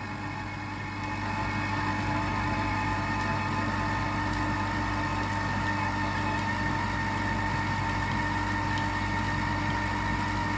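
Silvercrest Monsieur Cuisine Edition Plus kitchen machine's motor running its kneading program on dough. It is a steady mechanical hum with a few held tones, picking up in level about a second in and then holding even.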